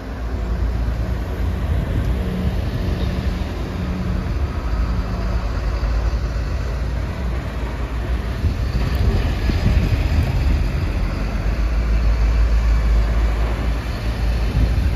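A slow convoy of heavy vehicles driving past at close range, a minibus and then fire engines, their engines running with a deep, steady sound. It grows louder over the last few seconds as a fire engine passes close by.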